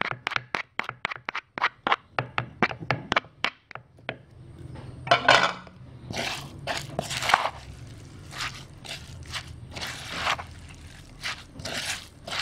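A wooden pestle pounds fresh shrimp, herbs and chillies in a mortar, striking about four times a second until the strokes fade out about three and a half seconds in. After that a spatula scrapes and turns the wet mixture around the mortar in irregular strokes.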